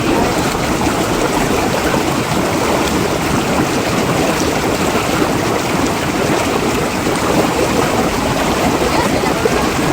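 Water rushing steadily.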